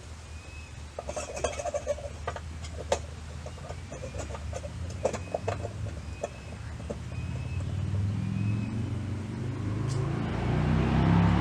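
Scattered metal clinks and knocks of hand tools and strut-mount hardware being handled during a suspension lift install. In the last few seconds a passing vehicle's rumble builds up and becomes the loudest sound.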